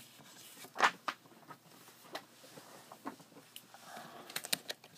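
Comic books being handled on a tabletop: a single thump about a second in, soft paper rustles and light taps, then a quick run of sharp taps near the end as the hand works at the stack.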